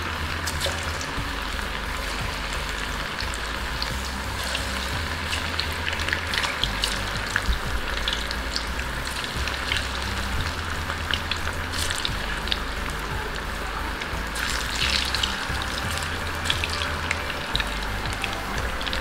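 Gram-flour-battered chicken 65 pieces deep-frying in hot oil: a steady sizzle with frequent crackles and pops.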